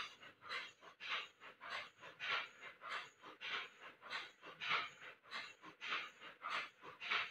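Rapid, rhythmic panting, about two or three short breaths a second, close to the microphone.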